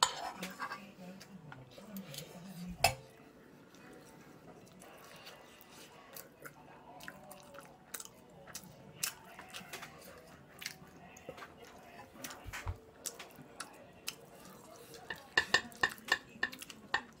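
Metal spoon clinking and scraping against a frying pan, with chewing of kimchi fried rice between spoonfuls. One sharp clink about three seconds in is the loudest, and a quick run of clinks comes near the end.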